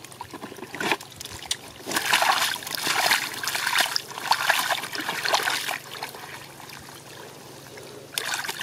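Splashing and sloshing in a shallow pool of thick muddy water as hands and a plastic basket scoop through it among stranded fish. It comes in quick wet bursts from about two seconds in, eases off for a couple of seconds, and picks up again near the end.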